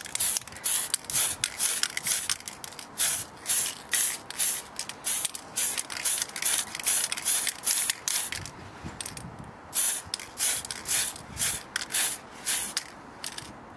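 Spray paint can hissing in many short bursts, a few a second, as silver backing paint is sprayed onto the inside of a polycarbonate RC car shell. The spraying pauses for about a second just past the middle and the last bursts are fainter.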